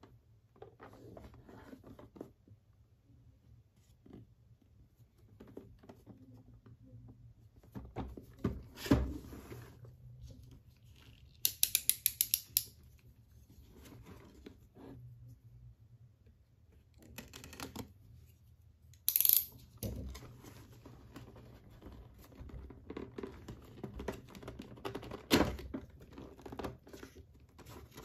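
Hands handling a cardboard figure box: card rubbing, sliding and scraping as the box is turned and its flaps are worked open. A quick run of crisp clicks stands out about twelve seconds in, then a short loud scrape and, later, a sharp snap.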